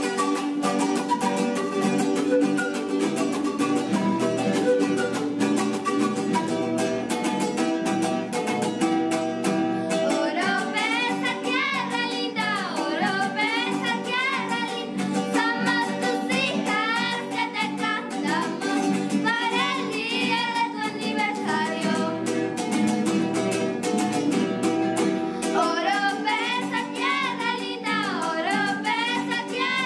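Andean folk music on acoustic guitar and charango, strummed and plucked. About a third of the way in, two young girls begin singing a song in high voices over the strings, pausing briefly near the end before singing again.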